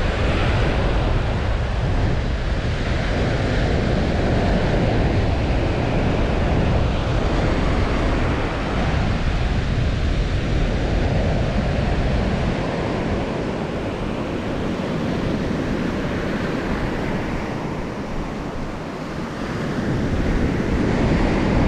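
Small ocean waves breaking and washing up a sandy beach in a steady hiss, with wind buffeting the microphone in a low rumble that eases about halfway through.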